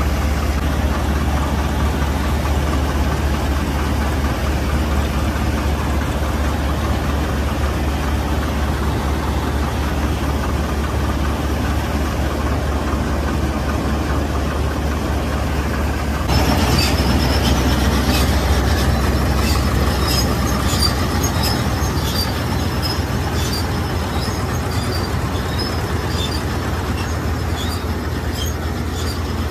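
Combine harvester and tractor diesel engines running steadily with a deep drone while the combine's auger unloads wheat into a tractor trolley. About sixteen seconds in the sound shifts a little louder and quick rattling ticks join.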